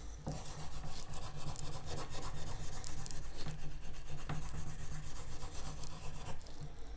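Rust eraser scrubbed rapidly back and forth on a steel knife blade, a continuous run of short rubbing strokes, rubbing rust and discolouration off the steel.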